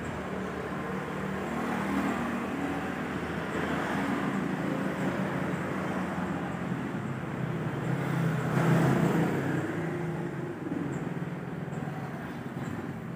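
Street traffic passing on the road, with engine hum and tyre noise; one vehicle goes by loudest about two-thirds of the way through.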